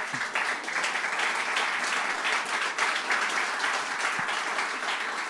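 Church congregation applauding: a dense, steady clatter of many hands clapping that breaks out suddenly and holds without a break.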